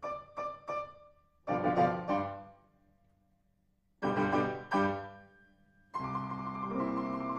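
Piano accompaniment to a silent film: short separate notes and chords that die away, with a near-silent pause of about a second in the middle, then held chords from about six seconds in.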